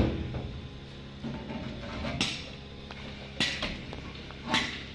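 Sheet-metal rear door panel of a mobile canteen truck body being opened and handled: a loud metallic bang at the start that rings on, then several sharp clanks about a second apart.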